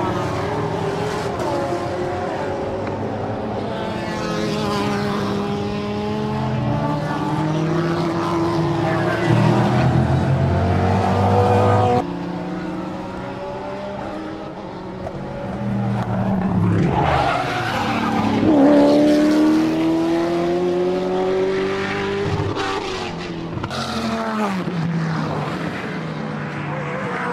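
GT race car engines at full throttle, their pitch climbing and dropping as they rev up and shift through the gears, with a sudden cut to another pass about twelve seconds in.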